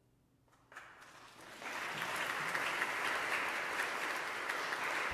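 Audience applauding: after a brief hush the clapping starts about a second in and quickly swells into steady, full applause.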